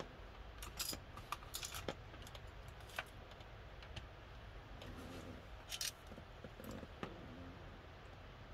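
Scattered light clicks and rattles of small electronic parts and tools being handled on a workbench, as a 15 kΩ resistor is picked out for fitting to an air-conditioner control board. The clicks come at irregular moments over a faint steady low hum.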